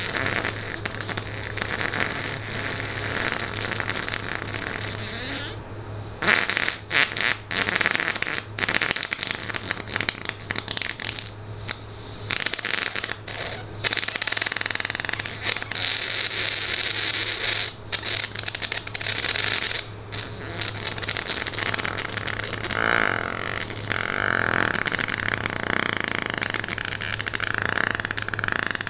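A long, drawn-out human fart that sputters on and on with brief breaks and louder surges.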